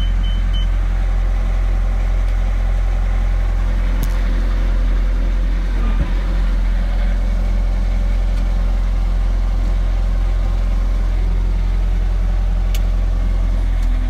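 Bobcat S570 skid steer's Doosan turbocharged four-cylinder diesel running steadily, heard from inside the cab. A short click about four seconds in and another near the end.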